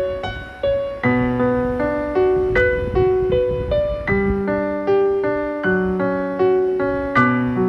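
Background piano music: single notes and chords struck at a steady, even pace, each note dying away.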